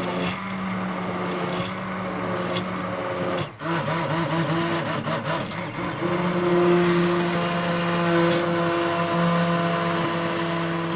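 Electric blender motor running steadily, cutting out for a moment about a third of the way through, then starting again with an unsteady, wavering pitch before settling back to a steady run.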